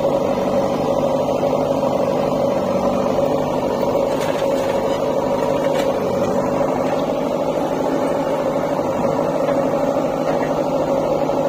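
JCB 3DX backhoe loader's diesel engine running steadily while the backhoe works, loading a tractor trolley.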